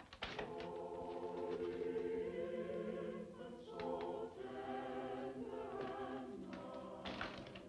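Choir singing slow, sustained chords, the harmony shifting every second or two.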